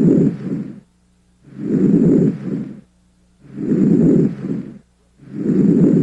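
Normal vesicular breath sounds heard through a stethoscope: a soft, low-pitched rushing with each breath, four breaths about two seconds apart, with short silent gaps between them.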